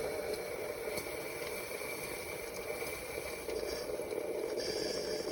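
Instant Pot Solo single-serve coffee maker running a brew cycle: a steady hum and hiss from its pump and heater, with a few faint ticks and a higher hiss joining near the end. The owner suspects the pump is failing because the brew comes out weak and watery.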